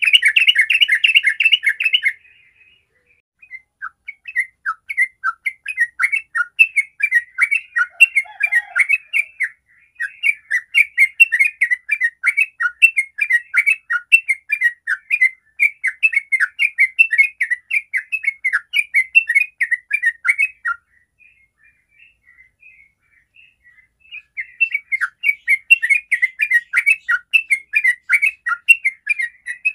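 Yellow-vented bulbul singing its long rolling chatter ('ropel'), a fast, bubbly run of notes going on for many seconds. It breaks off briefly about two seconds in, pauses again for about three seconds later on, then resumes.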